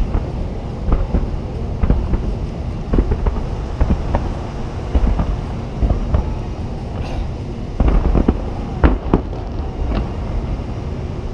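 Fireworks firing in a display: sharp launch bangs and pops at irregular intervals, about one a second, with a quick cluster near the end and the loudest bang among them. A steady low rumble runs underneath.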